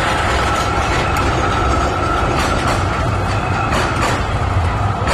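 A Melbourne tram rolling past close by: a steady low rumble with a high, even whine held over it, and a few sharp clacks from the wheels on the track.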